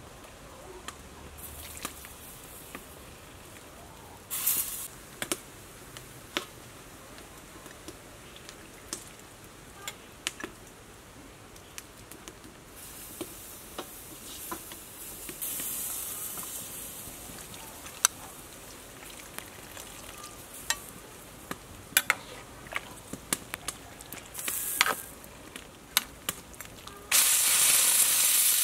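A pot of fish soup boiling, with a metal ladle clinking against the pot many times as tamarind water is ladled in and stirred. Near the end there is a loud stretch of hissing bubbling from the boiling broth.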